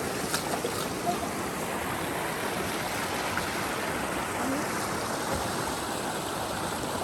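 River water running, a steady even rush.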